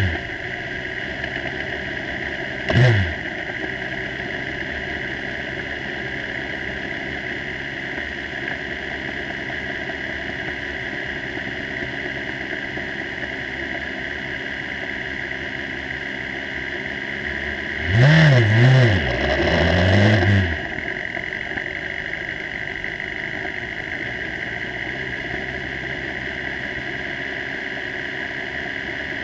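Formula 3 single-seater's engine running at low revs while the car rolls slowly, heard from a camera on the car. A short throttle blip about three seconds in, and two quick revs rising and falling about two-thirds of the way through.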